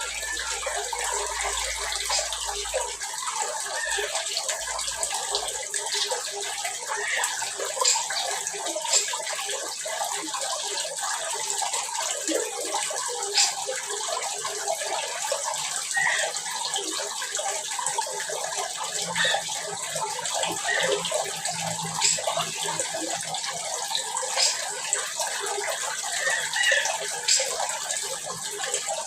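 Dense, continuous chorus of many small birds chirping and twittering in an aviary colony, with frequent short high chirps over a steady wash of chatter.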